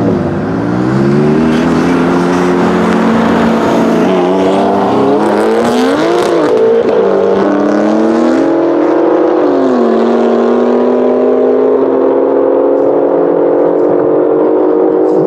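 Two cars accelerating hard away in a drag race: the modified BMW M5 F10's twin-turbo V8 with Akrapovic exhaust, alongside a second car. The engine notes climb and drop back several times as they shift up through the gears, then settle into a steady high note as the cars pull away.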